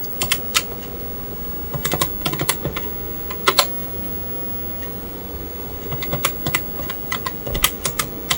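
Keys being pressed on a TRS-80 MC-10 computer keyboard: sharp clicks in short uneven runs, with pauses between, as a line of BASIC is typed in.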